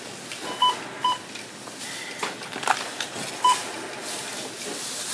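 Three short, identical electronic beeps: two close together about half a second apart under a second in, then a third about three seconds later. A sharp click comes between them, over a steady hum of background noise.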